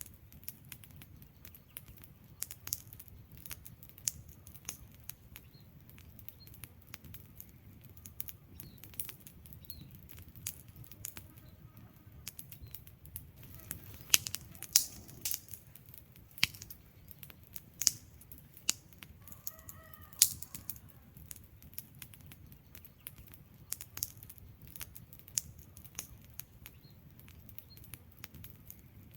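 Wood fire crackling: irregular sharp pops and snaps from the burning logs over a steady low rumble of the flames, with a cluster of the loudest pops about halfway through.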